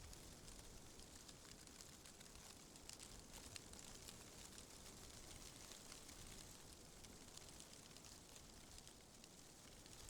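Faint wind rustling through tree leaves: a soft, steady hiss with small scattered ticks.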